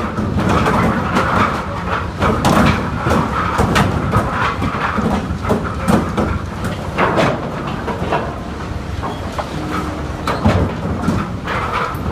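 Lumber boards clattering and knocking as they slide out of a tipped wire-mesh basket onto a steel incline conveyor, irregular wooden knocks over steady machinery noise.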